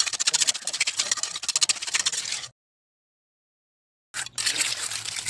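Gritty scraping and crunching of wet concrete and gravel being worked by hand into a gate-post footing. It cuts to dead silence for about a second and a half midway, then resumes.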